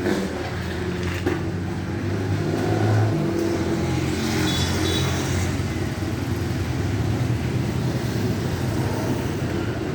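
Motor vehicle engine running steadily with road noise.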